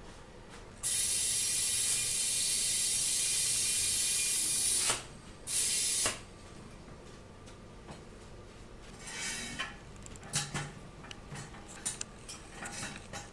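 Compressed air hissing from a shop air hose into a small lawn-tractor tire: one long blast of about four seconds, then a short second blast. A softer hiss and a few light knocks follow as the tire is handled.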